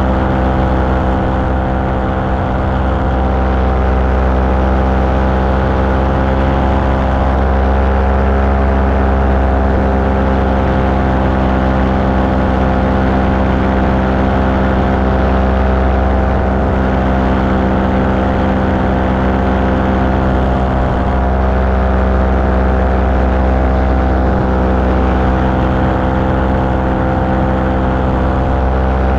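Small aircraft engine running steadily in flight, a continuous drone with no change in speed.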